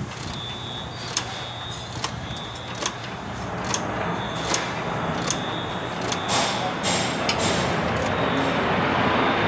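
Vehicle noise: a steady rumble that grows louder toward the end, with sharp knocks about once a second.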